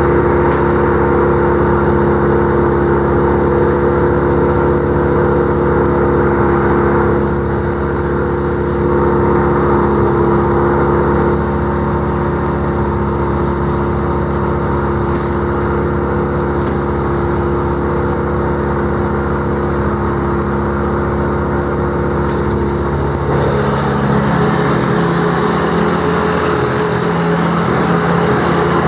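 Vermeer BC1500 wood chipper running at a steady engine speed. A little over three-quarters of the way through the sound changes, with a hiss coming up over the engine note.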